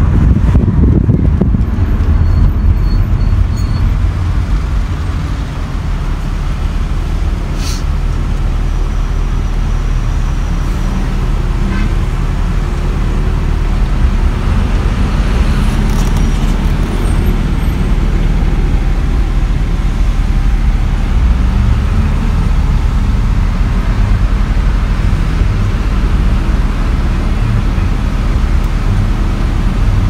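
Road traffic and car noise heard from inside a car in slow stop-and-go traffic: a steady low rumble.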